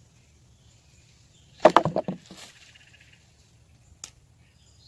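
Digging in the soil of a potato bed: a short cluster of scrapes and knocks about a second and a half in, then a single sharp click near the end.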